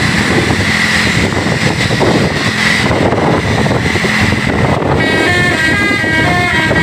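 Loud running bus noise, then about five seconds in a Basuri telolet multi-tone bus horn plays a short tune of stepping notes.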